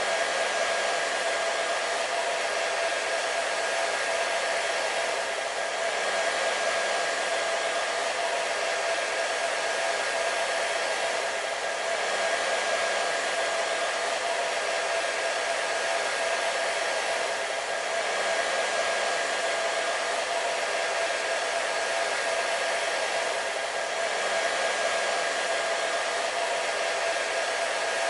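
Hair dryer running steadily: an even airy rush of blown air with a constant whine from the motor and fan.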